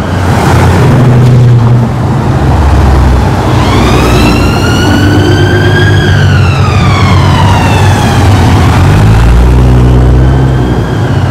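A Nissan GT-R's twin-turbo V6 runs loud and revs in short spells as the car pulls away in traffic. Midway a siren wails, rising and then falling once over about five seconds, with a fainter rise near the end.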